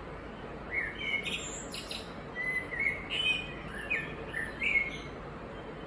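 A bird chirping: a string of short, quick notes that bend in pitch, starting about a second in and stopping near the end, over a steady low background hum.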